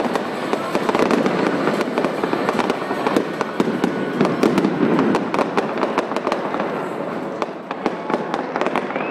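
Dense barrage of fireworks: many rapid overlapping bangs and crackles merging into a continuous rumble, thinning slightly near the end.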